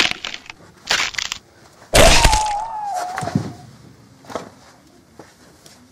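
A person being knocked down onto a carpeted floor: a sharp thud at the start, a cluster of knocks about a second in, and a heavy crash about two seconds in. The crash is followed by a held, high wail that slowly falls in pitch, then a few fainter knocks.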